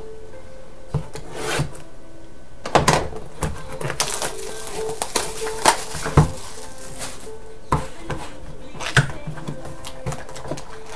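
A cardboard Crown Royal trading-card hobby box being handled and opened on a table: scattered taps and knocks, with a longer stretch of rustling packaging in the middle.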